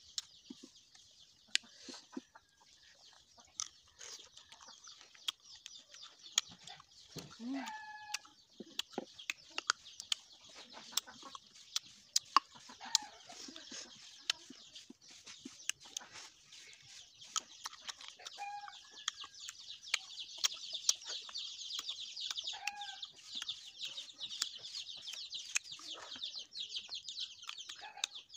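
Chickens clucking a few times over a steady high-pitched buzz that grows louder past the middle. Many sharp close clicks from handling and biting the small fruits.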